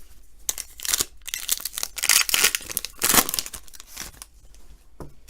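A trading card pack's wrapper being torn open and crinkled, a run of rough tearing and rustling that is loudest in the middle and dies away about a second before a single small click near the end.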